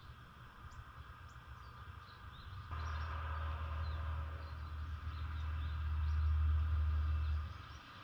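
Small birds give short, high chirps in the background. About three seconds in, a steady low rumble starts abruptly, louder than the birds, and cuts off suddenly shortly before the end.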